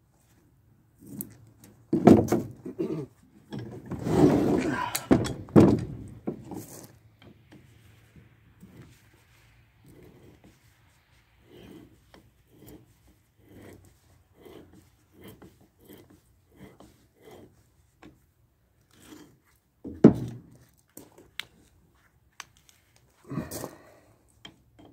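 Hand tools working on the rusty cast-iron swivel base of an old Reed bench vise as it is taken apart: loud knocks and a longer rough stretch early on, then a run of short regular strokes about one every two-thirds of a second, and two more heavy knocks near the end.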